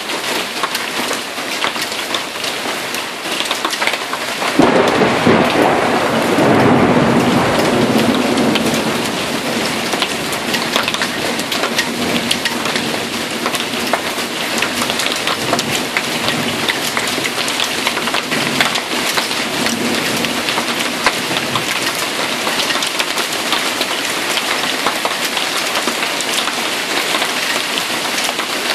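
Hail and heavy rain striking surfaces, a steady dense patter of small hits. About four and a half seconds in a thunderclap breaks out suddenly and rumbles for around five seconds before fading back under the hail.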